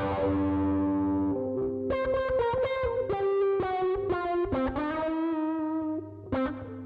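Snail SR-04 electro-acoustic concert ukulele played through auto-wah, overdrive and distortion pedals: a held distorted chord, then a run of single picked notes. A steady low hum sits underneath, which comes from the distortion and is called horrible humming.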